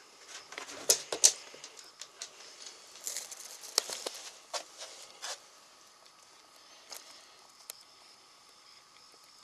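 A small dog moving about close to the microphone: scratchy rustling and scattered sharp clicks in the first half, the two loudest clicks about a second in.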